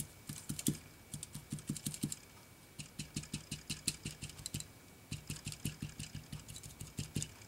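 Rapid light taps of an alcohol-ink applicator pad dabbing onto a foil-covered tag, several taps a second, with two brief pauses.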